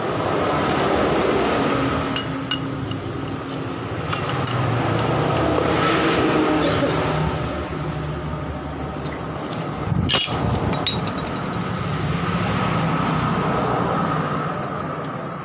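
Metal parts of a scooter's CVT clinking and clicking as the drive belt and pulleys are handled, with one sharp knock about ten seconds in. Under it runs a steady engine-like vehicle hum that swells and fades.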